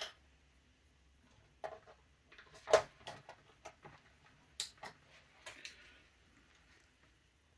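Scattered light clicks and knocks of airsoft rifle parts being handled during disassembly, with one sharper knock about three seconds in.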